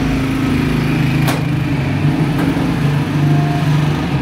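Steady low mechanical drone of a running motor, with a single sharp click about a second in.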